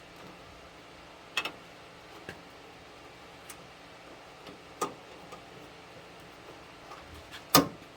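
Scattered sharp plastic clicks and small knocks of hands working a car's rear hatch latch loose and unplugging its wiring connector, the loudest click near the end.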